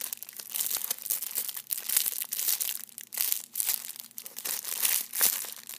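Clear plastic wrapper crinkling irregularly as a foam squishy toy inside it is squeezed and handled.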